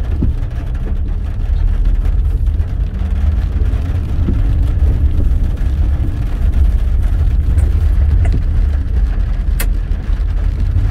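Car engine and tyre noise heard from inside the cabin while driving on a wet street, a steady low rumble. A single sharp click comes near the end.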